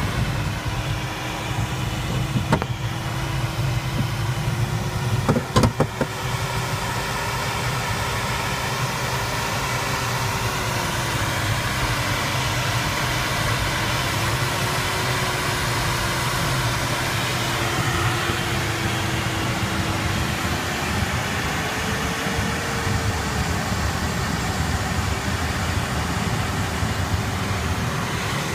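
Steady rush of air around the canopy of an Arcus M glider in flight, with the variometer's continuous tone slowly rising and falling in pitch as the lift changes. A few sharp clicks in the first six seconds.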